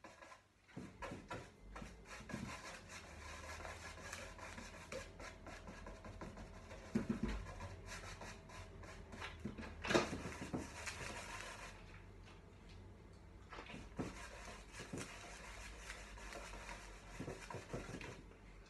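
Paintbrush scrubbing and dabbing wet glaze onto canvas boards: faint, irregular brushing and rubbing strokes, with a few sharper knocks, the loudest about halfway through.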